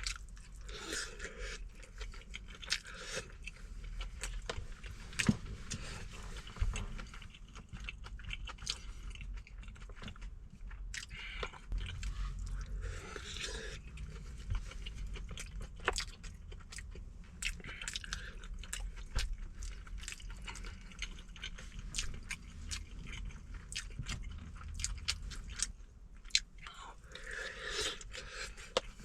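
Close-miked chewing and biting of a person eating braised chicken mixed with rice, with many short sharp clicks over a steady low hum.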